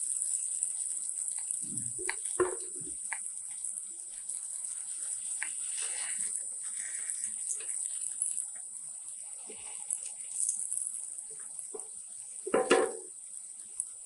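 Hot oil sizzling steadily as potato bafvada deep-fry in a pan, with a few knocks and scrapes of a slotted spoon against the pan as fried balls are lifted out; the loudest knock comes near the end.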